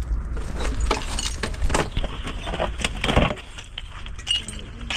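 A string of irregular clinks and knocks, like hard objects being handled and set down, over a steady low rumble.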